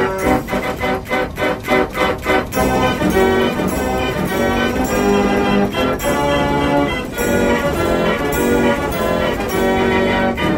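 Music with brass and bell-like tones, opening with a quick run of short, punchy chords.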